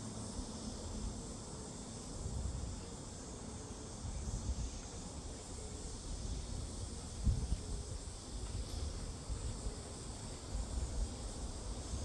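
Steady high-pitched chorus of insects, with wind rumbling and gusting on the microphone underneath.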